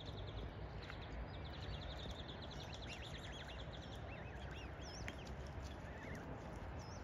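Birds calling over a low steady outdoor rumble: a rapid high trill through the first two seconds, then scattered short, arching high chirps.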